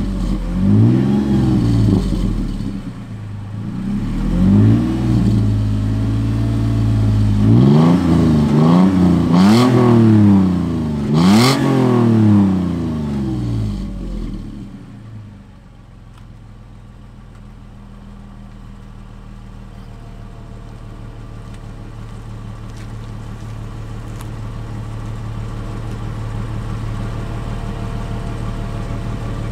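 2018 Toyota 4Runner's 4.0-litre V6 heard at the tailpipe of an MBRP 2.5-inch stainless cat-back exhaust: a string of quick free revs, each rising and falling in pitch, then about halfway through it drops back to a steady, deep idle.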